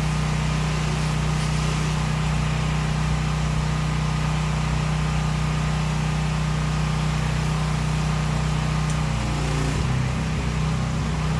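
Gas-engine pressure washer running steadily, its engine note dropping to a lower pitch about ten seconds in.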